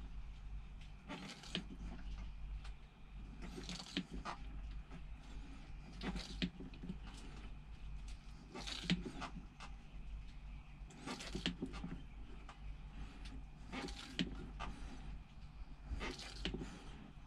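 Hand-operated oil extraction pump being stroked to draw the old oil out of a Bukh DV10 marine diesel's sump, one stroke about every two and a half seconds, each a short burst of clicks and scraping. A steady low hum runs underneath.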